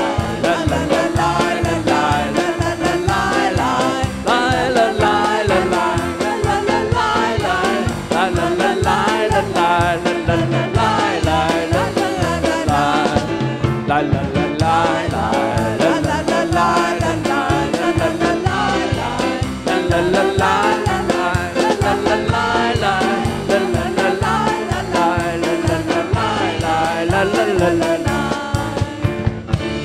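Worship music: a band playing with singing voices over a steady beat, loud throughout.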